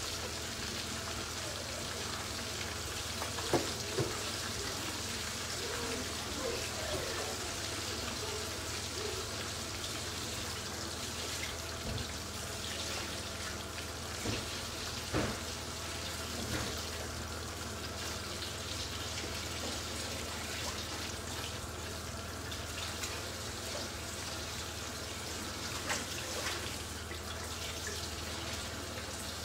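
Aubergine slices frying in shallow oil in a frying pan: a steady sizzle with a few sharp pops.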